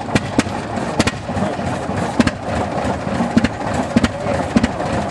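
Antique Avery tractor's engine running, firing with sharp, uneven exhaust cracks a few times a second over a steady mechanical clatter.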